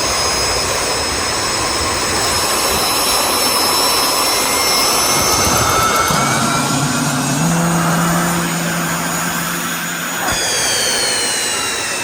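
Jet engine running with a steady loud rush and high-pitched turbine whine; about ten seconds in the whine starts to fall in pitch.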